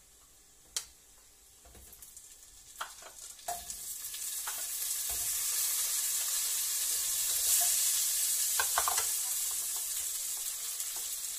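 Imitation crab sticks sizzling as they hit hot oil and browned garlic in a frying pan. The sizzle starts a few seconds in and swells, with a few sharp knocks before it begins and a couple more during it.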